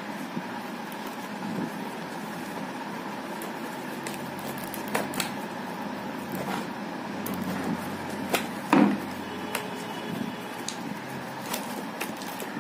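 Light plastic clicks and knocks as a full-face helmet's shell and inner visor parts are handled and pressed into place, the loudest knock about nine seconds in, over a steady background hum.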